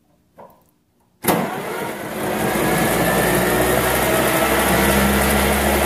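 John Deere MC's two-cylinder engine, head removed, spun over by its 6-volt starter motor on a 12-volt battery. After a faint click, the cranking starts abruptly about a second in and runs on as a steady whir. With no head there is no compression, so it turns freely: the freed-up engine is no longer seized.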